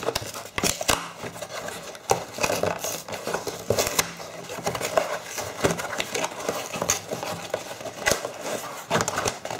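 Cardboard scraping and rustling with irregular clicks and knocks as a boxed product is tugged and worked out of a tight corrugated shipping carton.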